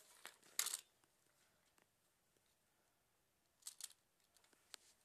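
Near silence: room tone, with a short scratchy rustle a little after half a second in and a brief rustle and a faint click near the end.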